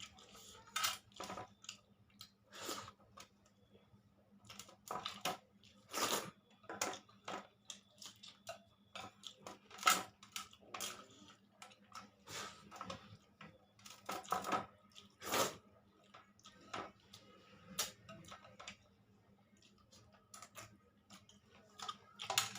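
A person eating rice, dal and soybean curry close to the microphone: chewing and mouth noises in irregular short bursts, with a few sharper clicks.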